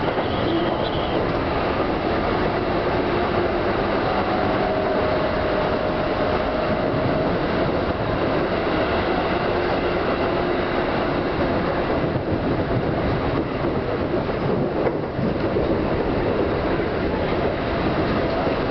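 Seibu 101-series electric train running along the line, heard from the front of the train: a steady rumble of wheels on rail with a faint steady tone above it.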